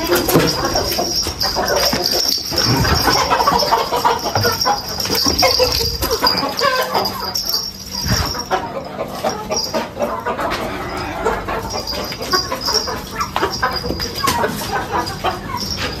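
Chickens clucking and calling in a pen, with irregular scuffling and knocking throughout and a steady high-pitched drone behind them.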